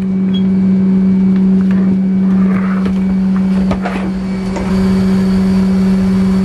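Steady hum of an airliner's cabin, heard inside its lavatory: one constant low tone over a wash of noise, with a few clicks and knocks from handling.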